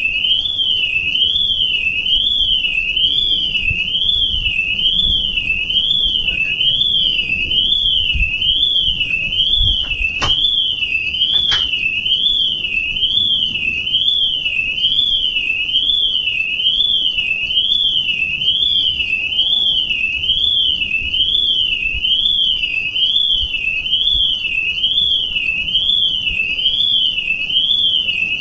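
Electronic alarm tone warbling steadily up and down, about one rise and fall a second. Two clicks about a second apart come a little over a third of the way in.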